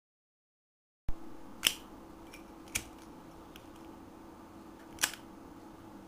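Brass Zippo lighter handled in the hand: sharp metallic clicks of its lid and case, three loud ones and a few faint ticks, over a steady low hum. The clicks start after about a second of silence.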